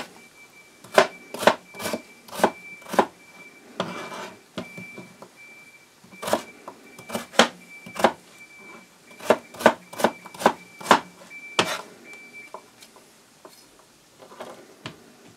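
Kitchen knife dicing raw potato on a plastic chopping board: sharp knocks of the blade striking the board, about two a second, in runs with short pauses, dying away to a few soft taps near the end.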